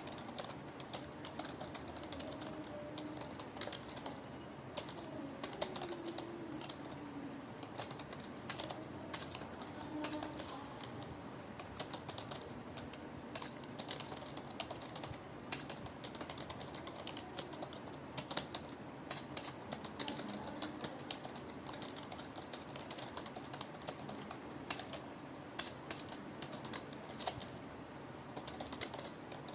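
Continuous typing on a computer keyboard: a dense, irregular stream of key clicks, with some keystrokes noticeably louder than the rest.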